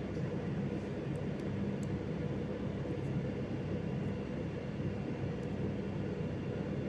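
Steady low mechanical hum with a few faint, light ticks scattered through the first few seconds.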